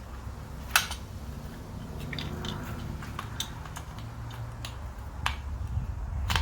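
Sharp clicks and snaps of plastic parts and cable fittings being handled on a lawn mower's handle: one loud click about a second in, a few lighter ticks, then another sharp click near the end.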